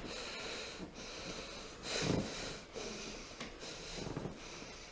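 A patient's heavy, noisy breathing during a chiropractic adjustment: several deep breaths in and out, the loudest about two seconds in.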